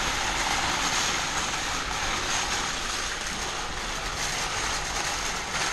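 Empty wire shopping trolley rolled across a car park deck: a steady, hissing rattle of its wheels and wire cage that cuts off suddenly near the end as the trolley stops.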